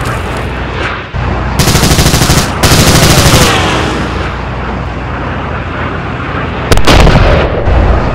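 Gunfire: two bursts of rapid machine-gun fire back to back about a second and a half in, then a sudden loud blast about seven seconds in, over a steady rumble.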